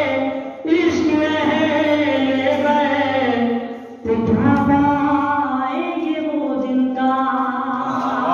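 A man singing devotional verses unaccompanied, in long held, wavering notes. There are three phrases, with short breaths a little under a second in and about four seconds in.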